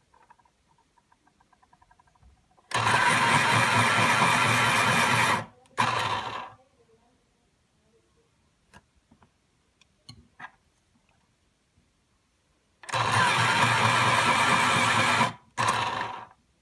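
Ohuhu electric pencil sharpener's motor and blades grinding as pencils are pushed in and sharpened. There are two runs of about two and a half seconds each, each followed after a short gap by a brief second burst, with faint clicks of pencils being handled in between.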